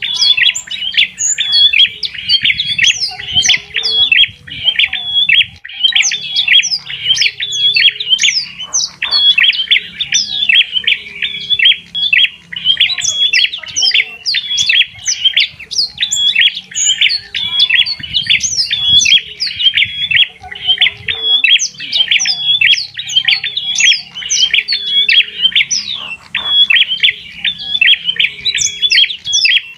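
Birdsong: a continuous, rapid run of short high chirping notes that never pauses.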